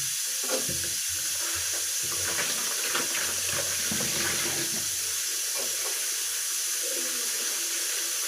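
A pressure cooker hisses steadily with steam. Water sloshes and splashes as tomatoes are washed by hand in a bowl.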